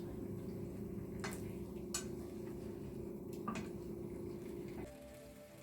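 Chicken frying in a pan on high heat, with a steady low hum and a utensil clicking against the pan three times. Near the end the frying sound cuts off and soft music begins.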